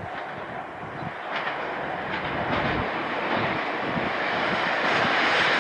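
Kyoto Tango Railway Aomatsu diesel railcar approaching on the line, its running noise growing steadily louder.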